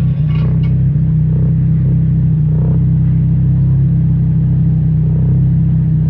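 1997 Nissan Altima's KA24DE four-cylinder engine idling steadily, heard at the tailpipe through a 2 1/4-inch exhaust with a Thrush resonator and performance muffler.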